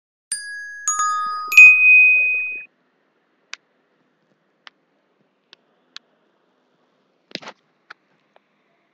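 A three-note electronic chime played through the computer as the audio-check test sound. There is a first note, a lower second, then a higher and louder third note held about a second, all over by about three seconds in. A few faint clicks follow.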